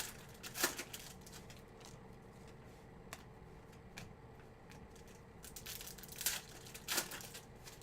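Plastic card-pack wrappers crinkling and tearing in short rustling bursts, with a few light clicks of cards being handled, over a faint steady hum.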